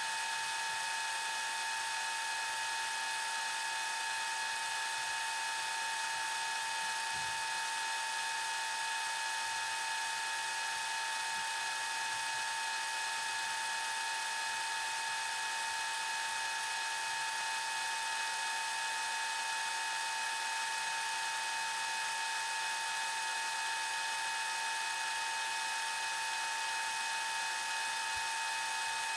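Camcorder tape mechanism fast-forwarding: a steady, high-pitched motor whine over a hiss that does not change.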